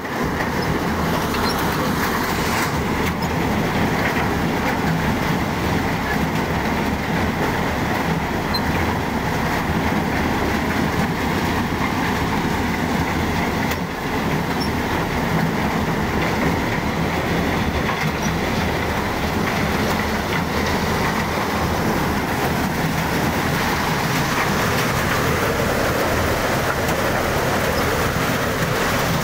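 Amar maize dehusker-sheller running under load, a steady dense clatter as husked cobs ride the elevator into the drum and are shelled.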